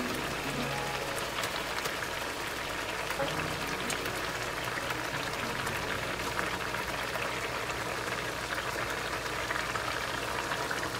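Curry gravy simmering in a pan: a steady bubbling hiss with fine crackle.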